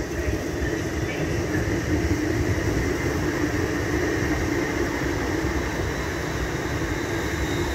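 London Northwestern Railway Class 350 Desiro electric multiple unit running past along the platform, a steady rumble of wheels on rail under the hum of its electric traction.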